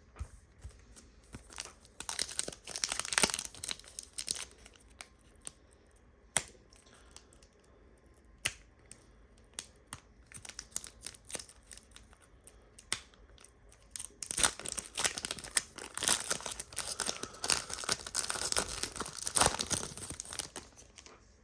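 Foil trading-card pack wrappers tearing and crinkling in two spells, about two to four seconds in and again from about fourteen to twenty seconds, with scattered single clicks between.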